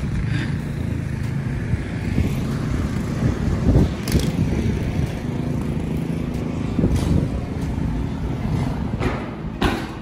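Wind on the microphone in a snowstorm, giving a steady, uneven low rumble, with a few thumps.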